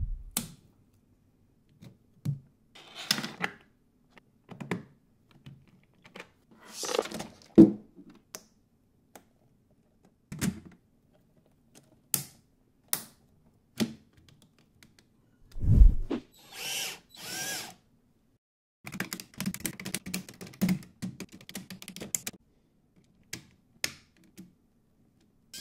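Lego Technic plastic parts and track links being handled and snapped together by hand: scattered clicks, snaps and rattles with silent gaps, a few louder knocks, and a denser run of small clicks in the last few seconds.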